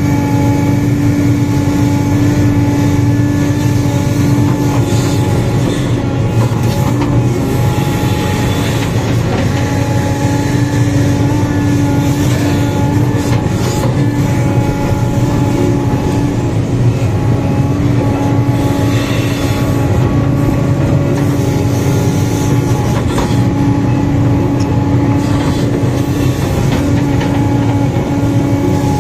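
Sumitomo 490 excavator's diesel engine working under load with a steady hydraulic whine, heard from the operator's seat, with a few scattered clunks as the bucket digs and dumps soil.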